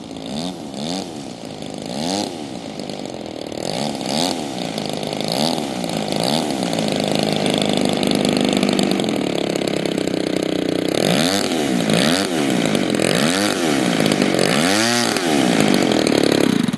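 Seagull Edge 540 RC aerobatic plane's engine running at speed, its pitch rising and falling over and over as the plane manoeuvres and passes by. It grows louder about halfway through.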